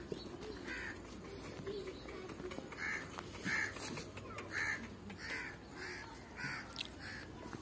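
Crows cawing over and over, short harsh calls coming about once or twice a second.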